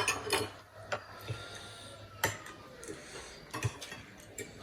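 Close-up eating sounds at a meal: about six scattered sharp clicks and smacks over a few seconds, with faint breathing between them.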